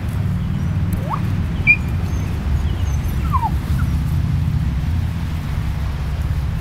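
Puppies giving a few short whimpers and yips, one rising and one falling in pitch, over a steady low rumble.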